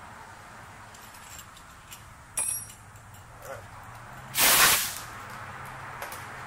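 Machine-shop sounds at a milling machine: a steady low hum, a sharp metallic clink about two and a half seconds in, and a loud half-second burst of hiss a little past halfway.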